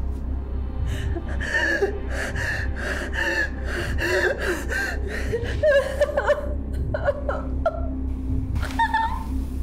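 A woman gasping and sobbing in quick, panicked breaths, several a second at first and then in fewer, longer cries, over a steady low hum.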